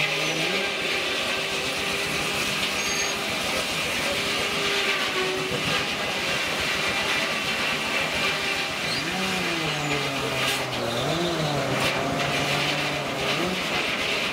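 Steam-driven sawmill's large circular saw running through an eastern red cedar log: a steady hiss of cutting with a humming tone that wavers up and down in pitch, and a few sharp knocks near the end.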